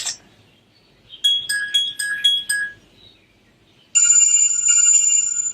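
Sharp Aquos Pad SH-08E tablet playing ringtone sounds through its speaker: a quick run of short high chime notes, about four a second, then after a pause a single long chime that starts about four seconds in and slowly rings out.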